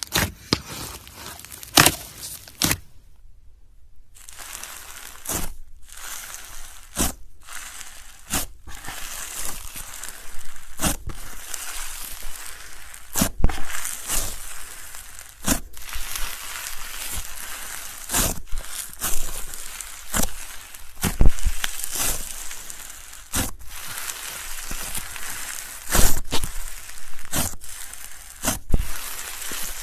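Crunchy slushee slime being squeezed and pressed by hand, giving a continuous crackle with many sharp pops and clicks at irregular intervals. A brief pause comes about three seconds in.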